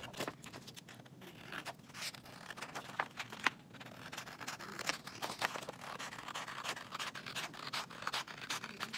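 Scissors cutting through a folded sheet of black paper: a run of short, irregular snips with paper rustling.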